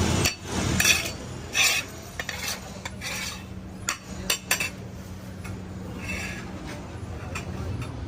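Metal serving utensils scraping and clinking against pots and plates as rice is dished out, in about ten irregular strokes over a low steady hum.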